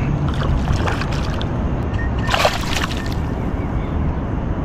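Water splashing and sloshing as a hooked fish thrashes at the surface, with a sharp splash about two and a half seconds in, over a steady low rumble of wind on the microphone.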